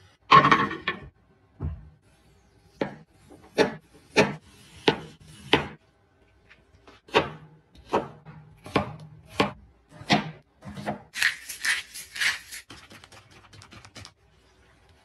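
Kitchen knife slicing a raw potato into thin strips on a wooden cutting board, each stroke ending in a sharp knock on the wood, about one cut every half second to second, then a quicker run of cuts near the end. It starts with a louder clatter as the board is set down.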